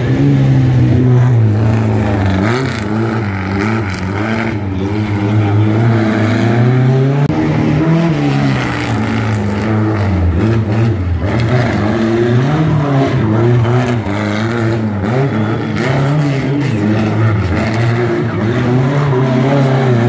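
Rally car engine revving hard, its pitch rising and falling every second or two as the car is driven around a tight roundabout.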